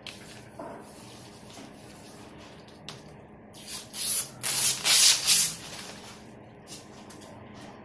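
Hands rubbing over the plastic surface of an adhesive sticky mat, then the thin top film being peeled off its tacky layer: a loud, noisy ripping hiss in several surges lasting about two seconds from roughly midway.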